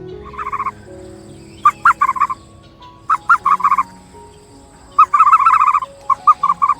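An animal calling in five quick runs of short chirping notes, a few notes a second in each run.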